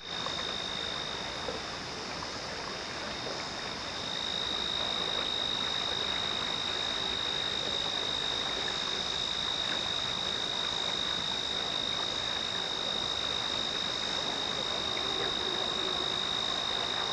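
A steady evening chorus of small calling animals: one continuous high-pitched trill over a soft hiss, a little louder from about four seconds in.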